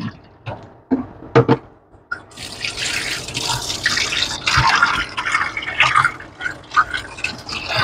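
A few short knocks, then about two seconds in a kitchen tap runs, its stream splashing into a plastic bowl of prawns in a stainless steel sink while a hand rubs them: prawns being rinsed under the tap.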